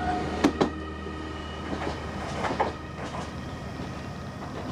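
Toyama Light Rail TLR0600-series low-floor tram passing close by and pulling away. Its running noise fades, with a few sharp clicks from the wheels on the rails, two about half a second in and two more about two and a half seconds in.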